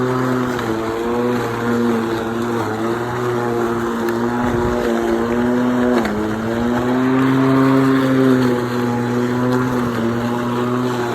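Hyper Tough 40-volt cordless electric lawn mower's motor and blade whirring steadily as it cuts and mulches tall grass. The pitch dips briefly about a second in and sharply about six seconds in as the blade meets thicker grass, then comes back up.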